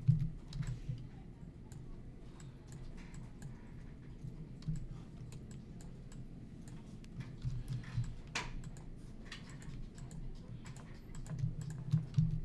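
Scattered clicks of a computer keyboard and mouse as the digital sculpting program is worked by hotkeys and brush strokes. A few dull low bumps come through, the loudest right at the start and again near the end.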